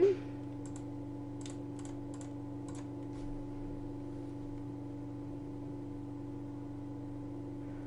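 Several soft computer mouse clicks in the first three seconds, scrolling down a software dialog's list, over a steady low hum.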